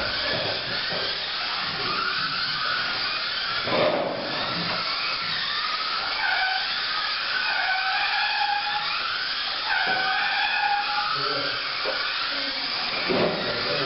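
Several Kyosho Mini-Z 1:28 electric RC cars racing: high-pitched electric motor whines that rise and fall as they accelerate and slow, overlapping, with a couple of knocks.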